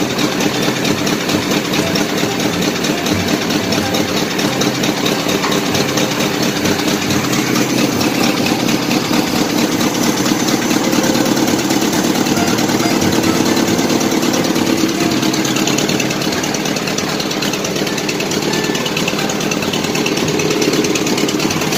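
Old Ford 600's engine idling steadily, still cold from a start in about 20-degree weather.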